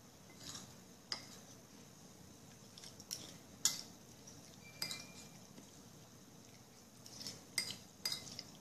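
Faint clinks of cutlery against a dish while eating, about eight scattered taps over several seconds, one of them ringing briefly.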